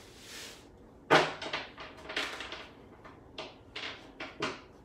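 Tarot cards being handled and laid down: a string of sharp slaps and taps, the loudest about a second in, then a quick run of lighter ones and a few more near the end.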